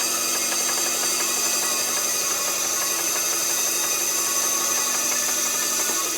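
CNC machining center cutting a part: a steady, loud grinding cutting noise with a high spindle whine over it, beginning to fade right at the end.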